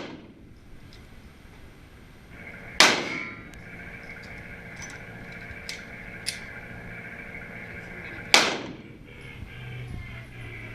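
Two Glock pistol shots about five and a half seconds apart, each sharp and ringing briefly in the range.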